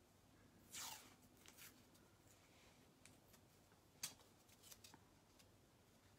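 Faint rustling and tapping of paper strips and tape being pressed and smoothed onto a globe by hand. There is a brief swish about a second in and a single sharp click about four seconds in.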